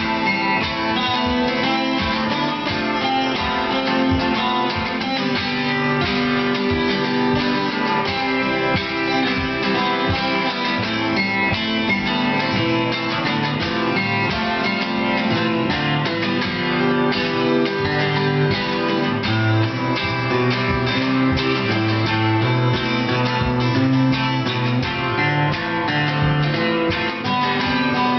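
Acoustic guitars playing an instrumental passage of steadily strummed chords with no singing.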